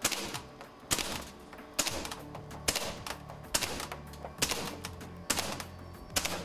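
SIG Rattler CO2-powered BB gun firing single semi-auto shots, about one a second, eight sharp shots in all. Music plays underneath, its low steady notes coming in about two seconds in.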